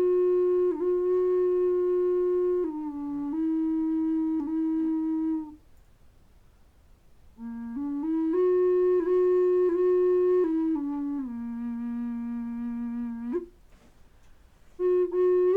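Flute playing slow phrases of long held notes that step between a few low pitches. There are short pauses between the phrases.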